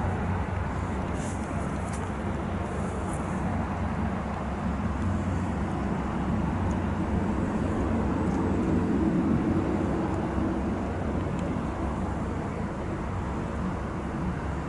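Twin turboprop engines of a Beechcraft King Air 250 running as the aircraft touches down and rolls out along the runway, a steady, even noise.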